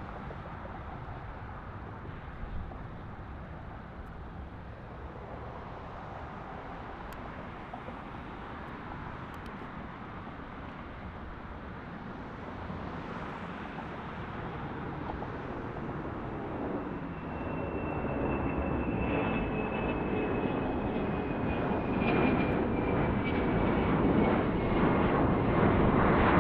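Boeing 717-200's two tail-mounted Rolls-Royce BR715 turbofans at takeoff power as the jet climbs out, a steady rumble that grows louder as it comes nearer overhead. In the second half a high whine slides slowly down in pitch, and the sound turns rougher and crackly near the end.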